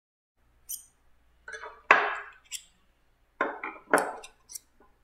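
Chisels and other hand tools being set one after another into a wooden chisel rack: a string of sharp clinks and knocks of steel and wooden handles against wood and each other, starting about half a second in, the loudest about two seconds in.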